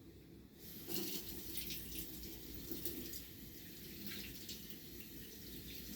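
Strong wind gusting, a rushing hiss that rises about a second in and keeps surging.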